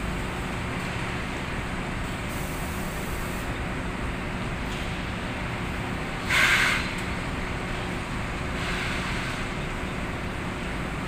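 Steady hum of the inclined belt conveyor carrying cement sacks, its motor giving a low even drone. About six seconds in, a short louder rustling slap as a paper cement sack is set down on the pallet stack, with a fainter one a few seconds later.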